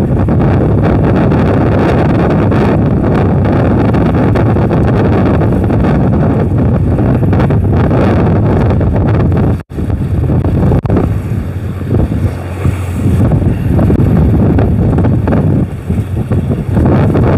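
Wind buffeting the microphone, a loud, steady rushing rumble, with the noise of the boat and sea beneath it. The sound drops out for an instant about ten seconds in, and is gustier after that.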